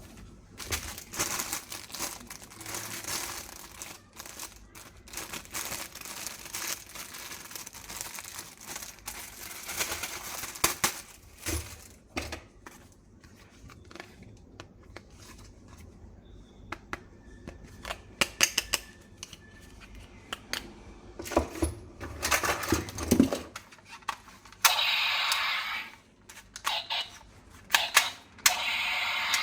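Plastic packaging crinkling and rustling, with many sharp clicks and light knocks as plastic toy gun parts are handled. Near the end a steady rushing noise runs for about four seconds.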